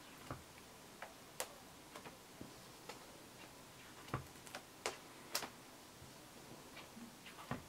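Plastic sleeve pages of a presentation binder being turned by hand: scattered sharp clicks and light snaps at uneven intervals, loudest from about four to five and a half seconds in.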